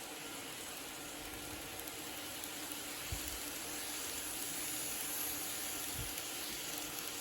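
N-gauge model train (KATO 285 series Sunrise Express) running along its track: a steady hiss that swells slightly midway, with a couple of soft low thumps.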